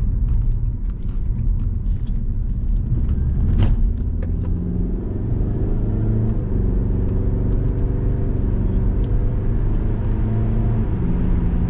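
Cabin noise of a 2004 Saab 9-5 Aero accelerating from about 30 to 60 mph: steady low road and tyre rumble with the turbocharged four-cylinder engine's drone, whose tones come up about four seconds in as it pulls. A single sharp click about three and a half seconds in.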